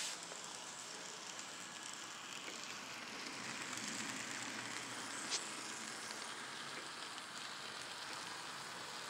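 N scale model trains running along the track: a steady hiss of the wheels and motors, with a single click about five seconds in.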